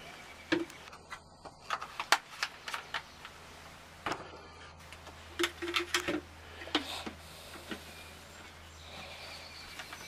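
Plastic coil-cleaner jug and coil-gun sprayer bottle being handled: scattered light clicks and knocks as cleaner is poured into the bottle and the sprayer head is fitted, with a few brief squeaks about halfway through.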